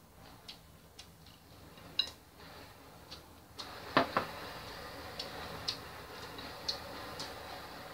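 Chopsticks clicking and tapping against a ceramic plate and bowl while eating: a scatter of light clicks, with two sharper knocks in quick succession about halfway through.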